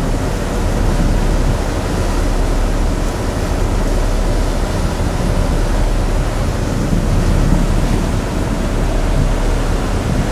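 Steady rushing of wind over the microphone on a moving ferry's open deck, over a constant low hum from the ship's engines.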